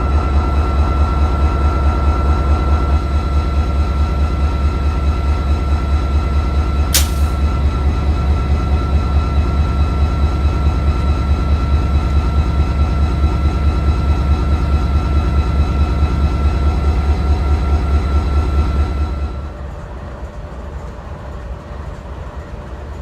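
Amtrak train's diesel locomotive running close by: a loud, steady, rapidly pulsing engine sound with a steady high whine over it, which drops to a much quieter rumble about 19 seconds in. A short sharp click-like sound cuts through about 7 seconds in.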